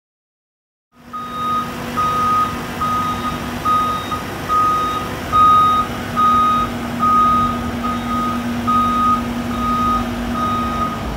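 Reversing alarm on a heavy work vehicle beeping steadily, a little more than once a second, over the vehicle's engine running. The sound cuts in abruptly about a second in.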